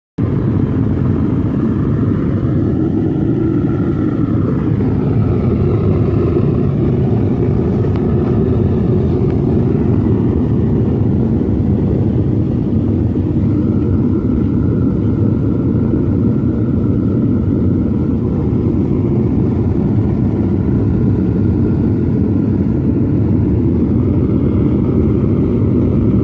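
Propane burner of a homemade melting furnace running at full blast: a loud, steady rush of flame and air, heating the furnace to melt cast iron, with a faint wavering whistle above it.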